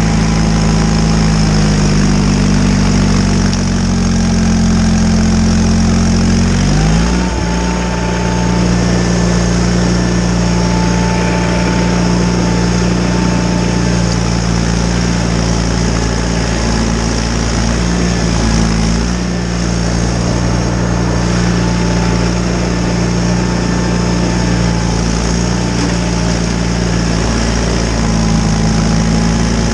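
John Deere 318 garden tractor's twin-cylinder Onan engine running steadily while powering a Model 49 snowblower. Its note shifts about seven seconds in, then holds steady again.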